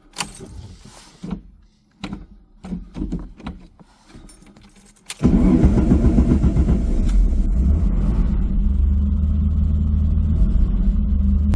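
Scattered clicks and knocks of handling, perhaps keys. About five seconds in, the Lister Bell Stratos replica's Alfa Romeo Busso 3.0-litre V6 comes in suddenly and runs steadily and loudly.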